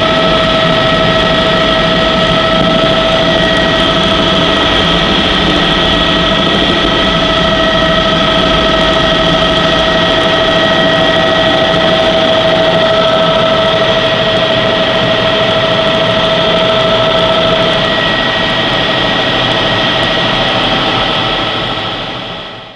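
Helicopter cabin noise in level flight: a steady whine of several held tones over a loud, even rush of engine and rotor noise, fading out at the very end.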